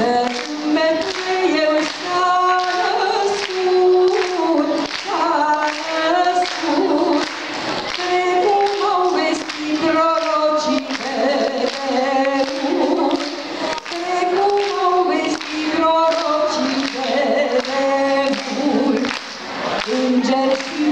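A woman singing a Romanian Christmas carol (colindă) without instruments, her voice amplified through a microphone and PA, with long held notes.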